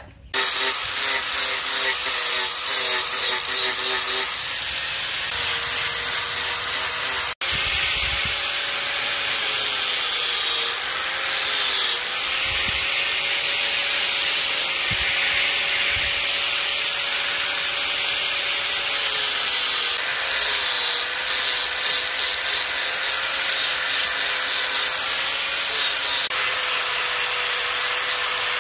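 Angle grinder with a sanding disc running continuously against rosewood, grinding it to shape; the motor's whine holds steady, wavering slightly as the disc bears on the wood. The sound breaks off for an instant about seven seconds in.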